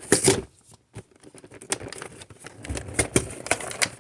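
Cardboard and plastic packaging of a boxed trading-card collection being handled and torn open by hand: irregular crinkling, rustling and ripping, with a couple of louder rips at the start.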